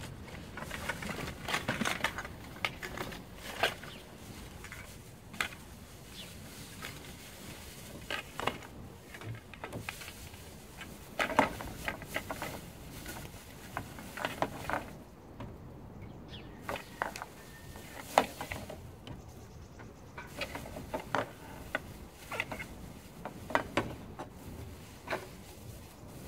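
Empty bottles and cans clinking and knocking against each other as they are handled, in irregular clatters.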